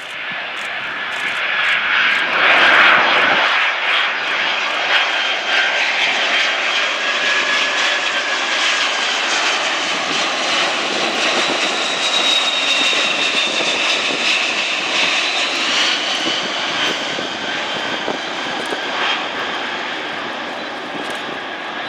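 Lockheed L-1011 TriStar's three Rolls-Royce RB211 turbofans in a flyby: a jet roar that swells to its loudest a few seconds in, then holds and slowly eases, with whining tones sliding in pitch as the aircraft passes and powers away.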